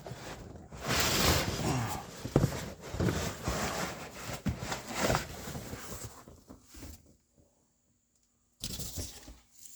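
Hands unpacking parts: plastic wrapping rustling and tearing, with scraping and a few sharp knocks of metal parts being moved. It cuts to silence for about a second and a half near the end, then the handling starts again.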